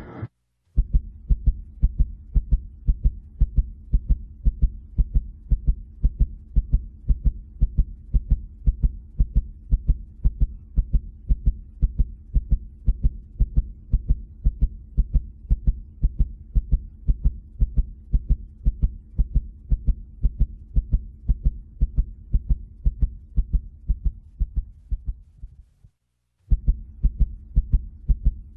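Heartbeat-like thumping: a fast, regular low pulse over a steady low hum, a suspense-style sound effect. Near the end it cuts out for about half a second and then starts again.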